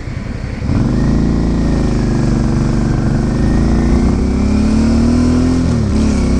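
Suzuki V-Strom 650's V-twin engine pulling under throttle: it gets louder about a second in and its pitch climbs slowly, then drops briefly near the end and picks up again.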